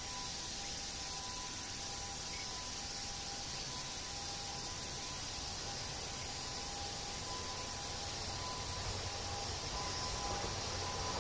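A steady outdoor hiss with two faint steady tones. Near the end a low rumble begins to rise as an E257 series electric train approaches.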